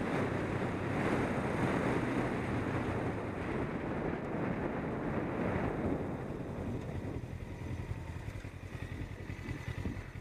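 Wind rushing over the microphone of a motorcycle-mounted camera, with the motorcycle's engine running steadily underneath. The wind dies away after about six seconds as the bike slows to a stop, leaving the engine idling with an even pulse.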